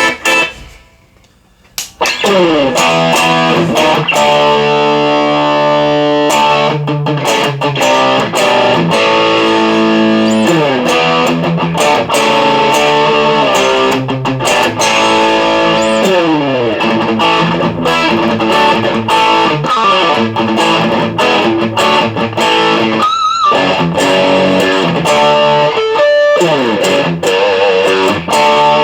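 USA-made ESP M3 electric guitar played through a Marshall DSL1 valve amp with distortion, in fast riffs and descending runs. It stops for about a second right at the start, then plays on with two short breaks in the second half.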